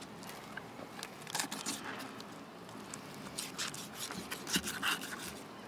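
A fillet knife cutting along a mutton snapper's rib bones and through its flesh: a scattered run of soft scratching, crackling clicks, busiest in the second half.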